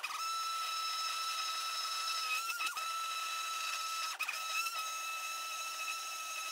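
Handheld stick blender running in a pot of liquid soap batter, a steady high-pitched motor whine that wobbles briefly in pitch a few times as the blade works the thickening mix. The batter has reached trace.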